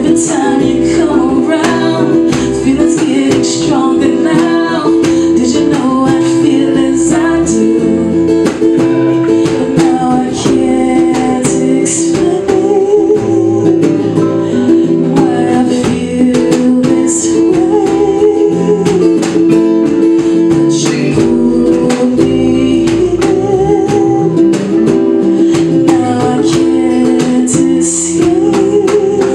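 Small live band playing a slow song: a strummed acoustic-electric guitar, an electric bass line and djembe hand-drum strikes, with a voice singing over them in long notes with vibrato.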